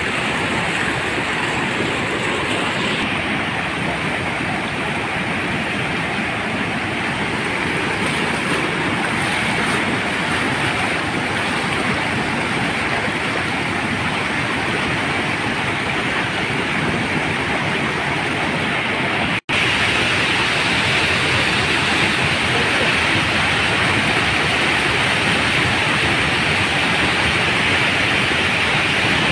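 Heavy floodwater rushing and cascading over walls and steps: a steady noise of fast-flowing water that cuts out for an instant about two-thirds of the way through.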